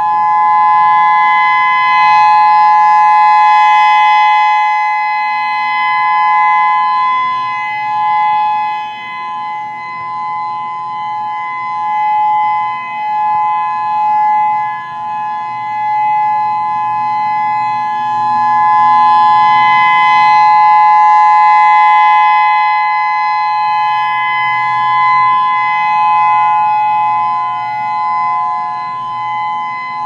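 Federal Signal EOWS-612 electronic outdoor warning siren sounding a steady two-pitch tone in a test, through its rotating horn array. The sound swells loud as the horns face the listener, fades, and swells again about seventeen seconds later; the unit sounds healthy.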